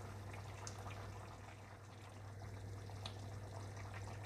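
Chicken curry gravy simmering in a clay pot, faint bubbling with scattered small pops, over a steady low hum.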